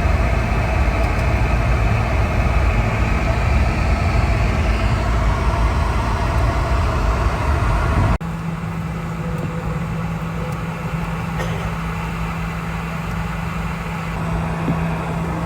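Road vehicle noise: loud engine and road rumble, cut off abruptly about eight seconds in. After that comes a quieter scene with a steady low engine hum.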